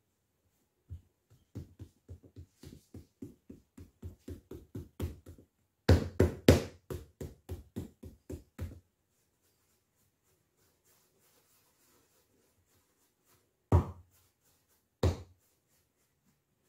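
Quick knocking on a wooden tabletop as pastry dough is worked by hand, about three or four knocks a second for several seconds, with a few louder ones midway. Later come two single knocks.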